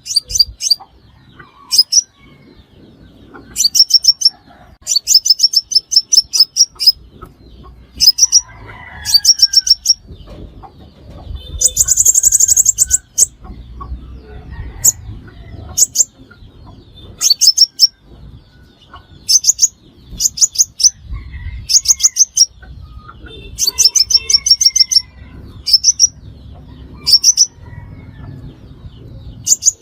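Sunbird calling as a trapping lure: short bursts of rapid, very high-pitched ticking notes repeated every second or two, with one longer, buzzier burst about twelve seconds in.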